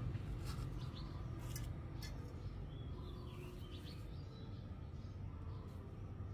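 Quiet background noise with a steady low hum. There are a few soft clicks in the first two seconds and faint high chirps around the middle.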